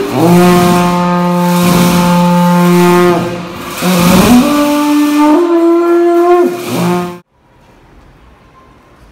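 Tibetan dungchen long horns blowing loud sustained low notes that step up and down in pitch, over repeated strokes of large ceremonial nga drums in a reverberant hall. The sound cuts off suddenly about seven seconds in, leaving faint room noise.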